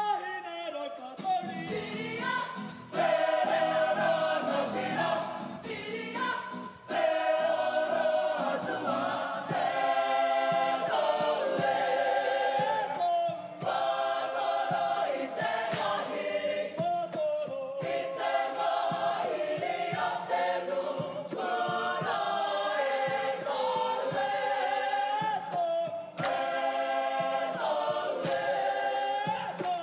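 Māori kapa haka group singing together in chorus, many voices in unison, with brief breaths between phrases.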